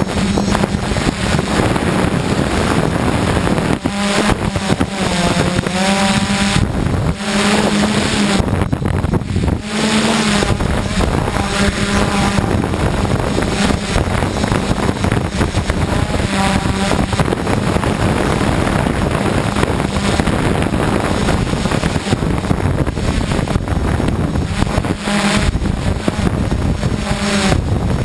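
DJI F550 hexcopter's six electric motors and 1038 propellers droning in flight, the pitch rising and falling as the motors speed up and slow down, several times. Heavy wind buffets the microphone throughout.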